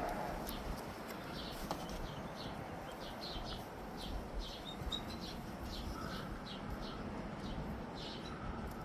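Small birds chirping repeatedly in the background, short high chirps several times a second, over a steady hiss.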